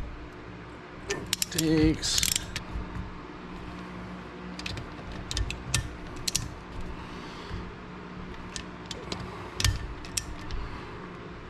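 Ratchet wrench clicking in short runs as the cylinder head nuts of a rebuilt Honda CR500 engine are tightened in steps. A louder cluster of clicks comes about two seconds in.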